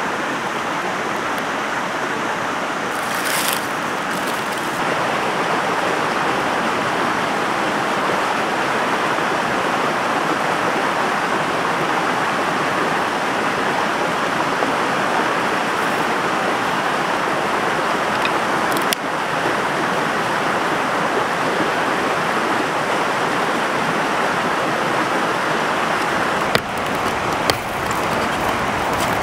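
Stream water rushing steadily over rocks, with a few faint clicks.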